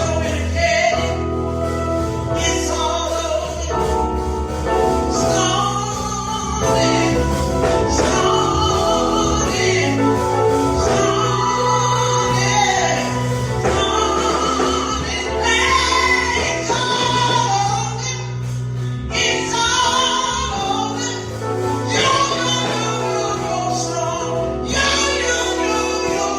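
Recorded gospel song: singers over a steady band with a sustained bass.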